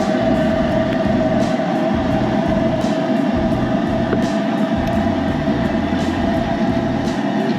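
A loud, steady mechanical rumble with a constant hum running through it.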